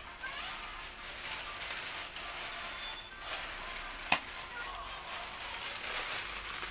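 Chicken heart skewers sizzling on a wire grill over glowing charcoal, a steady crackling hiss, with one sharp pop about four seconds in.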